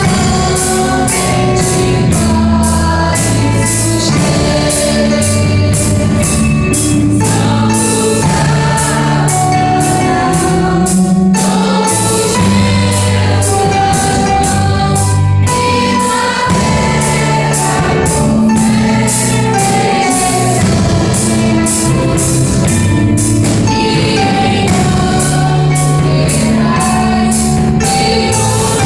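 A Christian hymn sung by a choir over a steady band accompaniment with a regular beat.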